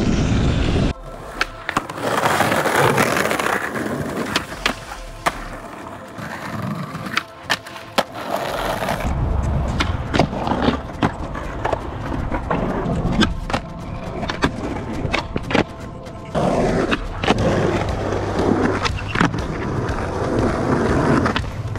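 Skateboard rolling over asphalt and concrete, with repeated sharp clacks from tail pops, flip tricks and landings.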